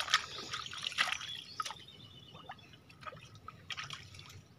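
A hand digging and groping in wet mud and shallow water at a mud crab's burrow: irregular squelches, sloshes and drips, busiest in the first second and then thinning to scattered drips.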